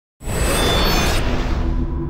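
Intro music starting suddenly with a bright swooshing wash, giving way after about a second to held low notes.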